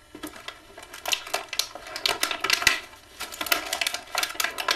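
Plastic toy packaging being handled, crinkling and crackling in a dense, irregular run of clicks as parts are worked free of it.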